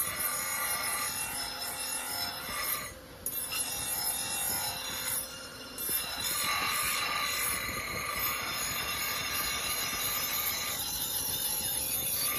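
Steel hunting-axe head being ground on a spinning abrasive wheel on a belt-driven shaft: a high-pitched grinding with steady ringing tones as the blade edge is shaped. The grinding eases briefly about three seconds in and again around six seconds, as the blade is lifted and repositioned.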